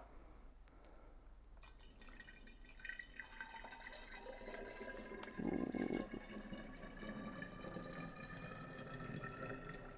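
Homemade Irish cream poured from a blender jar through a funnel into a glass swing-top bottle. The pouring starts a little way in, and the filling bottle gives a tone that rises slowly in pitch as the level climbs, briefly louder a little past halfway.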